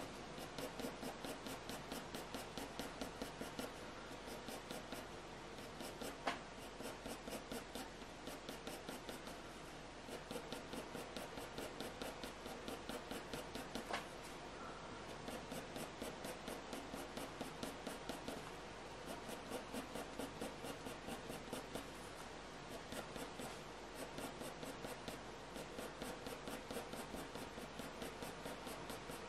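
Staedtler Mars Lumograph HB graphite pencil scratching on hot-press watercolour paper in quick, short, repeated strokes, several a second, as fine fur lines are hatched in. Two sharper ticks stand out, one about six seconds in and one near the middle.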